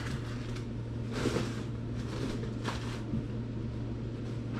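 Two brief rustles of plastic food packets being handled, about a second in and again past halfway, over a steady low electrical hum.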